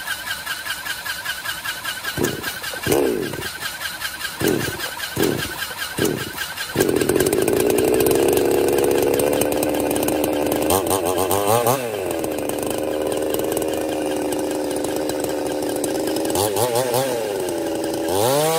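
Gasoline chainsaw mounted in a sliding guide on a chainsaw lathe, cutting into a large wooden log. It revs in short throttle blips, then runs steadily at high throttle about seven seconds in, its pitch sagging and recovering twice as the chain bites into the wood.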